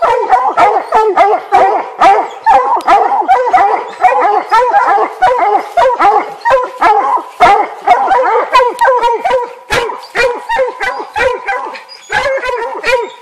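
Several hounds barking and baying nonstop at the foot of a tree, their calls overlapping, easing for a moment near the end. This is treed barking, the sign that a black bear is up the tree.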